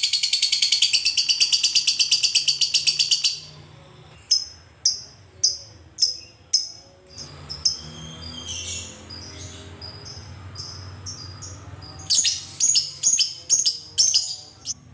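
Lovebird giving a long, very rapid high-pitched chattering trill (the 'ngekek'), which cuts off after about three seconds. Then come separate short, sharp chirps about two a second, a quieter pause, and a quicker run of chirps near the end.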